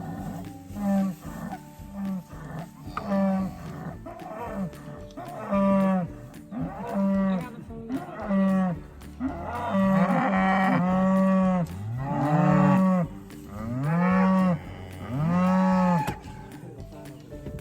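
Cattle mooing again and again, about a call a second, with the moos growing longer and louder in the second half.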